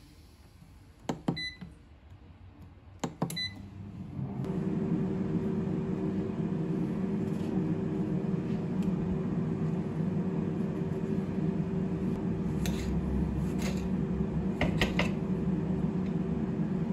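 Microwave oven: two keypad presses with short beeps, then the oven starts and runs with a steady hum, with a few light clicks from a kitchen surface later on.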